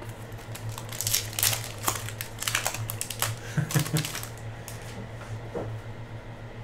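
A foil trading-card pack wrapper crinkling and tearing as it is ripped open by hand, in a run of sharp crackles lasting a few seconds. After that comes softer handling of the cards.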